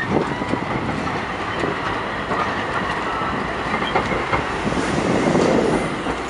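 10G 'Blokkendoos' articulated tram rolling past at low speed as it pulls away, its wheels clicking over rail joints and points, with a thin steady high squeal through the first half. The rumble swells briefly about five seconds in.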